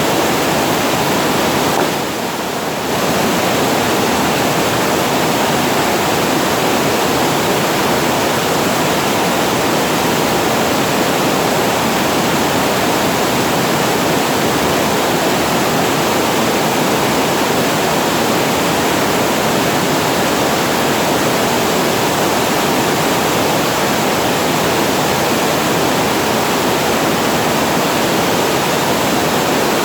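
Water pouring over a reservoir weir, a steady rushing waterfall sound, dipping briefly in level about two seconds in.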